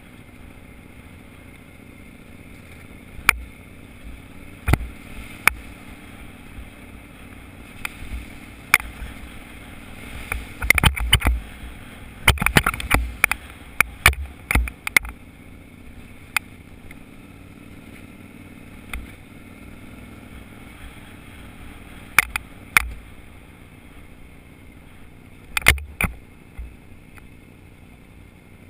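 Off-road vehicle engine running steadily along a rough dirt track, with a drone of wind and engine noise. Sharp knocks and rattles come from jolts over bumps, thickest about ten to fifteen seconds in and again near the end.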